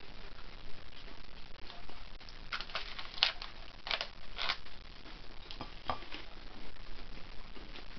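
A person eating: biting into and chewing a crusty reheated bread roll and soft-boiled egg, with a run of short crisp crackles between about two and a half and four and a half seconds in and one more near six seconds.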